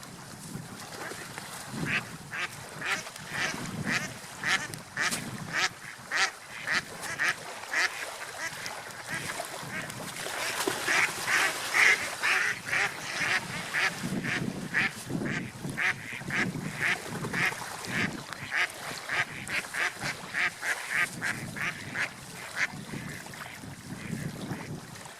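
Ducks quacking in a long run of short calls, about two or three a second.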